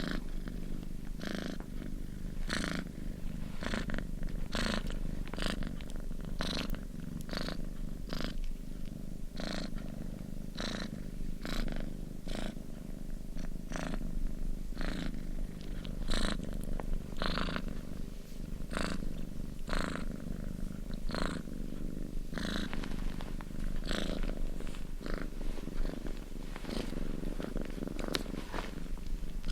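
Domestic cat purring continuously, a low steady rumble with a breathy pulse about once a second as it breathes in and out.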